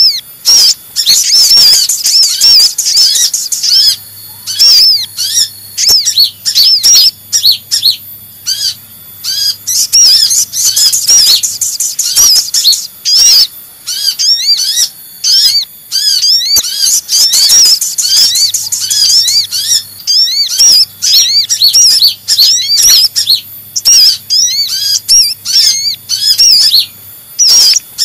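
Sunbird lure calls: agitated, rapid high chirping from kolibri ninja and sogok ontong sunbirds, repeated in dense runs with short breaks.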